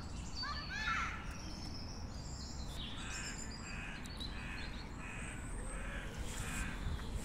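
Crows cawing: a few calls about a second in, then a series of evenly spaced caws from about three seconds in. A low steady rumble runs underneath.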